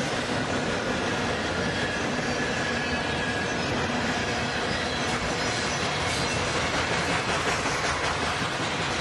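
N-scale model freight cars rolling past on track: a steady, dense clatter of many small wheels on the rails.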